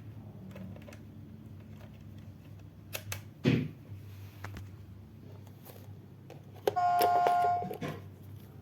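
Low steady hum with a few clicks and a thump near the middle, then, about seven seconds in, a single electronic beep-like chime tone held for about a second, the loudest sound.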